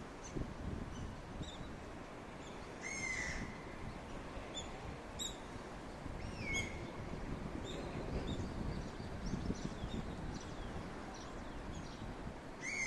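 Small birds chirping and calling, with a louder drawn-out call about three seconds in, another about three seconds later, and a third at the very end. Beneath them runs a steady low rush of river water and wind.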